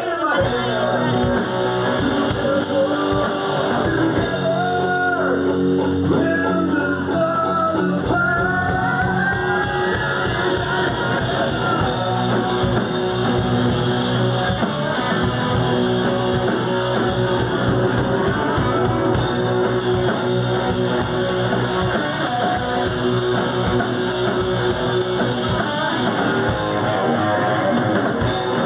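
Rock band playing: electric guitars, bass and drum kit with a singer.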